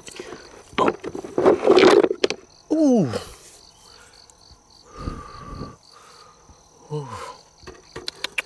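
Gold-coloured rocks scraping and knocking against each other as a hand shifts them in a box, loudest about one to two seconds in, with a dull knock about five seconds in. A man's voice gives two short exclamations falling in pitch, and insects chirp steadily in a regular beat behind.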